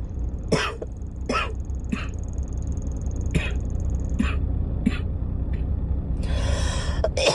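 A girl coughing and clearing her throat in short, separate coughs about once a second, with a longer breathy rush near the end, over a steady low rumble.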